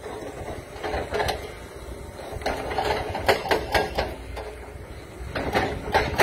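Excavator-mounted hydraulic breaker hammering rock in three bursts of rapid blows, about four or five a second.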